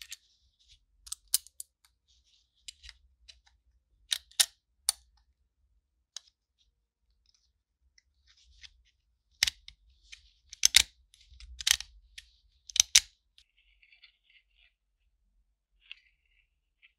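Sharp metallic clicks and light scraping from the switch mechanism of an Ecolite electric railroad lantern as its metal switch ring is fitted onto the painted switch plate and worked. There are three clicks about four seconds in and a run of louder clicks from about nine and a half to thirteen seconds.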